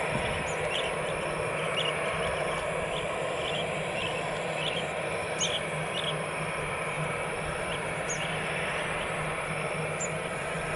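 Steady hum of an Airbus A320-216's CFM56 jet engines at low taxi power, with small birds chirping repeatedly over it.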